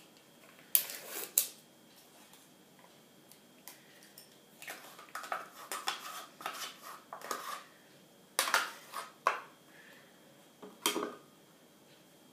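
A plastic yogurt pot being opened and a metal spoon scraping yogurt out of it into a glass bowl, in scattered short scrapes and clinks.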